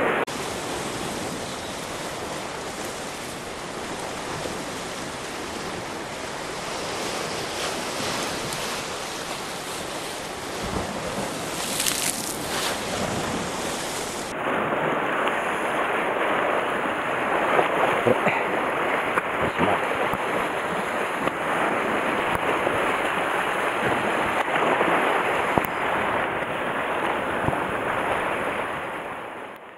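Sea waves washing and breaking against a rocky shore, with wind rumbling on the microphone. The surf sound shifts abruptly about halfway through.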